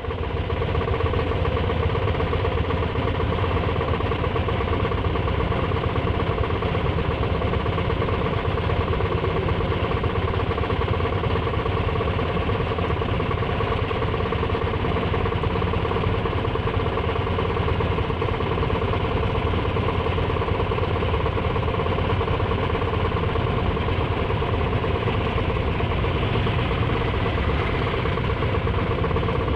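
Auto rickshaw's small engine idling steadily while the vehicle stands stationary.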